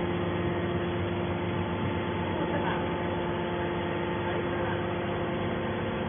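Hydraulic power unit of a horizontal metal baler, its electric motor and pump running with a steady hum of several constant tones.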